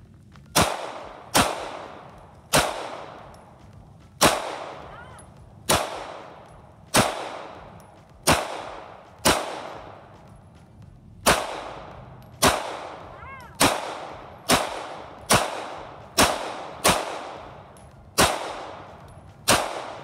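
9mm semi-automatic pistol fired in slow single shots, about eighteen in all, roughly a second apart with a slightly longer pause about halfway through. Each shot is a sharp crack followed by a fading echo.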